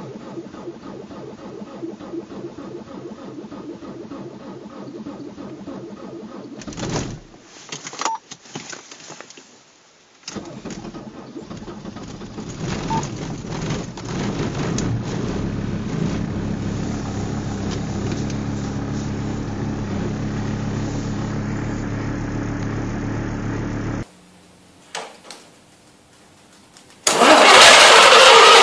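Cold engines starting: one runs unevenly, then after a break about ten seconds in another catches, builds up and settles into steady running before cutting off abruptly. Near the end a much louder engine sound begins.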